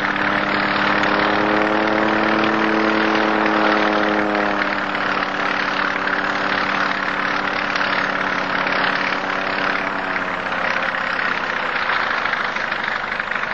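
Propeller aircraft's piston engine running steadily, with a droning tone that fades about four seconds in and comes back briefly near ten seconds.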